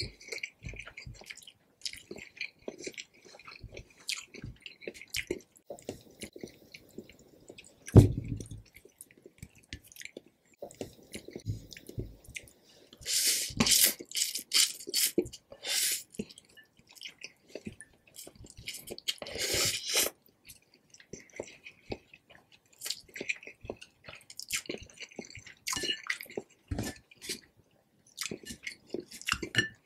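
Close-miked slurping and chewing of stir-fried instant noodles (Indomie Mi Goreng), with wet, sticky mouth sounds and small clicks. There are longer, louder slurps about 13 and 19 seconds in. A single sharp low thump about 8 seconds in is the loudest moment.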